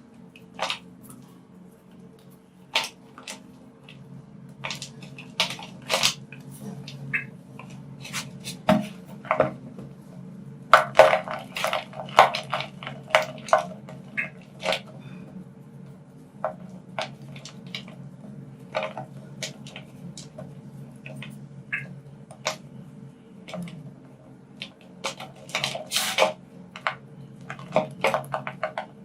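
Soft gym chalk being crumbled: irregular, dry crunches and crackles, coming in a thick flurry about a third of the way in and again near the end, over a steady low hum.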